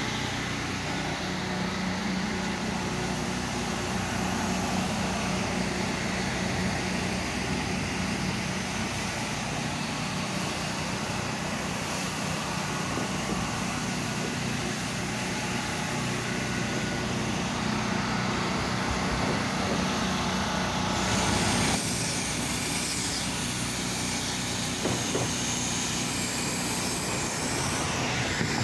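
Gas pressure washer engine running steadily, with a continuous hiss of spray over it; the hiss changes abruptly about 22 seconds in.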